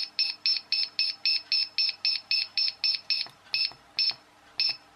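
A C51 digital clock kit's piezo buzzer beeps once for each step as the alarm-hour setting advances. There is a quick even run of short high beeps, about four a second, while the set button is held to scroll the hour. Near the end it slows to single beeps about half a second apart as the button is tapped.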